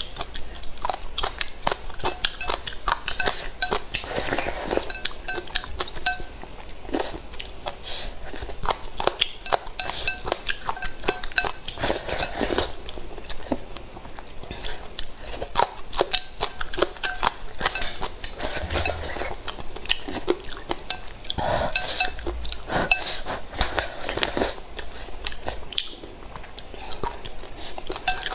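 Eating sounds: wooden chopsticks clinking and scraping against a ceramic bowl of rice porridge, with chewing and crunching of shredded papaya. There are many small sharp clicks all through.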